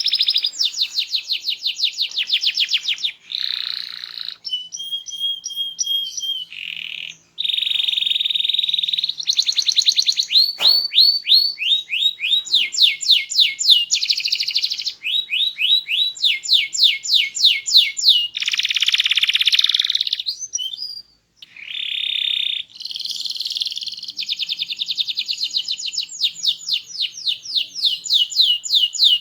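Domestic canary singing a loud, varied song of fast trills of repeated notes and buzzy rolls, pausing briefly about seven seconds in and again about twenty-one seconds in.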